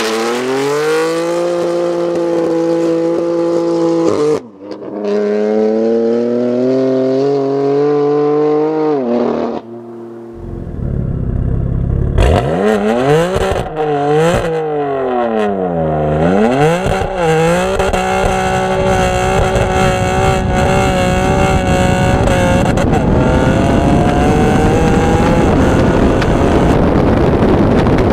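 Straight-piped BMW M3 F80's twin-turbo inline-six at high revs, holding a steady pitch for several seconds at a time with a brief drop near the start. About ten seconds in it goes quieter, then revs rise and fall sharply several times before settling into a steady, slowly rising drone under low wind rush.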